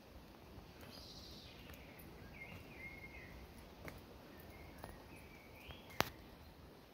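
Faint birdsong: a few short chirping phrases, with a single sharp click about six seconds in.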